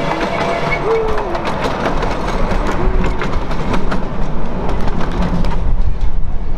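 Wheels of a 10¼-inch gauge miniature railway's passenger carriages clicking over the rail joints as the loaded train rolls past and away. Riders' voices are heard in the first few seconds, and the clicking thins out near the end.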